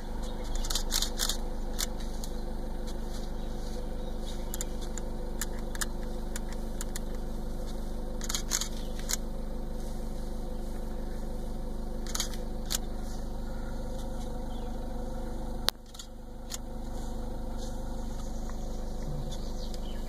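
Car engine idling steadily, with a sharp click now and then, some in quick pairs, from a DSLR camera shutter. About three-quarters through, a louder click comes and the hum dips briefly before returning.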